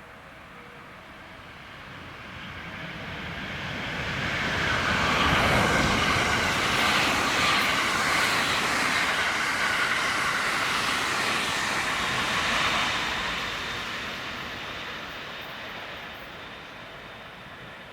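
A train passing by at speed: a rushing rumble builds over a few seconds, stays loud for about eight seconds, then fades away.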